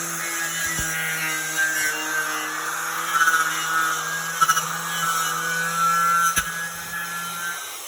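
Milwaukee 11 amp 4-1/2 in. angle grinder with a twisted-knot wire wheel running at speed, scratching against painted, rusty steel to strip it. The motor stops near the end.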